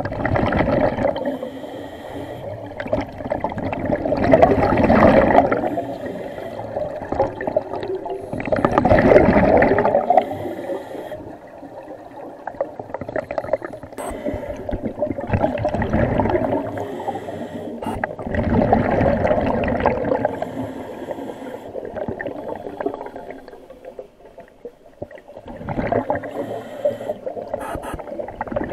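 Scuba regulator breathing underwater: exhaled air bubbles gurgling out in swells a few seconds apart, about six in all.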